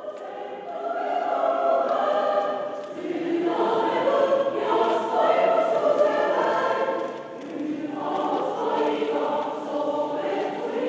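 A choir singing, many voices holding long notes together, easing briefly about seven and a half seconds in before swelling again.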